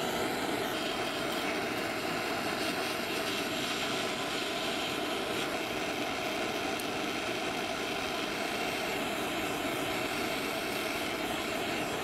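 Jeweller's soldering torch flame burning with a steady hiss as it heats a silver assembly to flow the solder.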